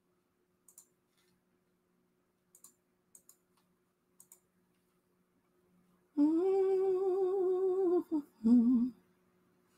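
A woman humming with her mouth closed: one held, slightly wavering note of about two seconds, then a short lower hum. Before it, a few faint clicks.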